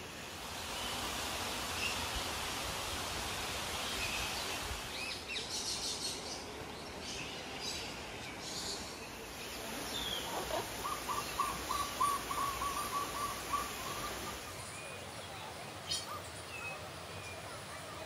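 Several birds calling and chirping over a steady background hiss, with a quick run of about eight repeated notes partway through.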